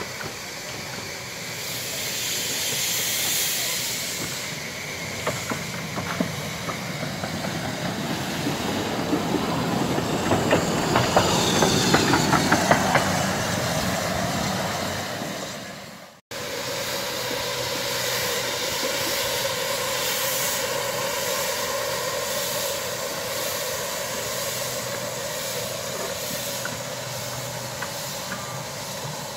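15-inch-gauge miniature steam locomotive drawing its coaches into the platform, the clicking of wheels over the rails growing louder to a peak about halfway through. After a sudden cut, a standing red steam locomotive hisses steadily as steam blows off.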